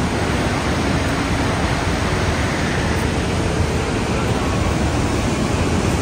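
Steady rushing of a waterfall and the creek running through the canyon below.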